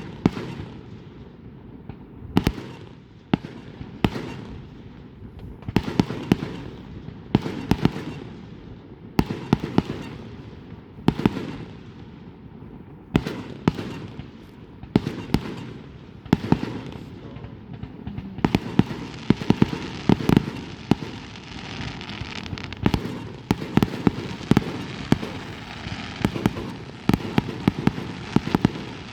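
Fireworks going off: a string of sharp bangs, each trailing off in an echo, with a stretch of dense rapid crackling about two-thirds of the way through.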